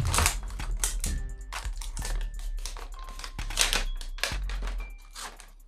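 Phone's printed packaging sleeve crinkling and rustling in a string of short bursts as the phone is slid out of it, loudest at the start, with background music underneath.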